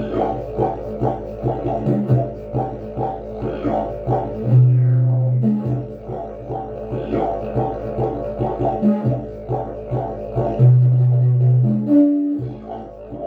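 Agave slide didgeridoo, set up in its extra-long configuration, playing a low continuous drone pulsed in a rhythmic pattern of about two to three beats a second. Twice, about four and a half seconds in and again near eleven seconds in, the drone breaks into a higher, held horn-like toot lasting about a second.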